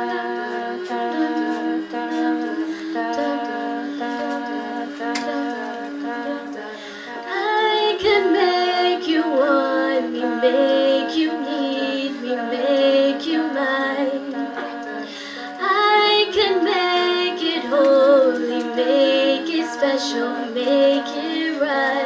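Women's a cappella group singing with no instruments: held chords from the backing voices, with a louder lead voice singing a moving melody over them from about seven seconds in.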